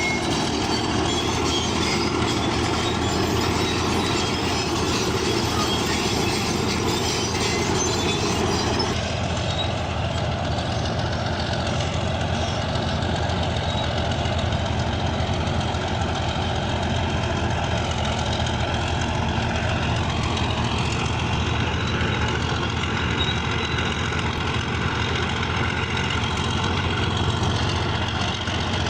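Bulldozer's diesel engine running steadily under load, with the clatter of its steel crawler tracks. The sound changes abruptly about a third of the way in, as at a cut to another shot.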